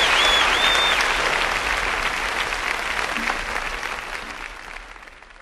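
Audience applause from the end of a live song recording, with a few whistles in the first second, fading out steadily to silence.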